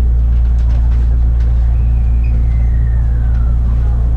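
Steady low hum inside a JR West electric commuter train standing at a station platform. A few faint clicks and a faint whistle that falls in pitch about halfway through sit over the hum.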